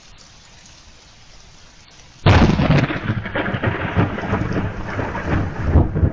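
Steady rain, then about two seconds in a sudden loud thunderclap from a lightning strike about 600 m away, which goes on crackling and rolling.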